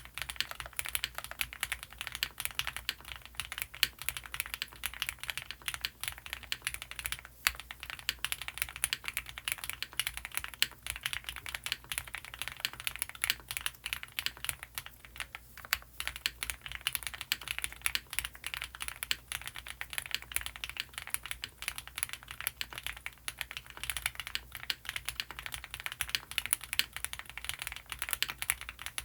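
Continuous fast typing on an Owlab Mr. Suit custom mechanical keyboard with lubed Gateron CJ linear switches, EPT plate foam and GMK ABS keycaps. The keystrokes run together in a dense clatter, with a couple of brief pauses.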